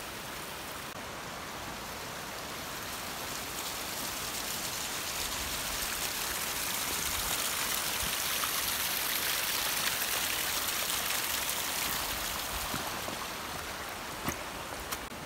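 Steady rush of running water that swells through the middle and eases off again, with two light clicks near the end.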